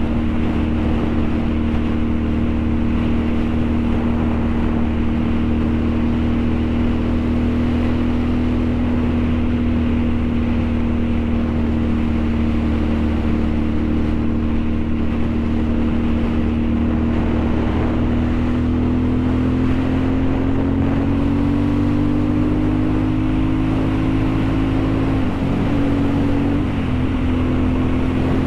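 Motorcycle engine running at a steady cruise under wind and road noise. Its pitch creeps up a little in the second half, and there is a brief break in its note near the end.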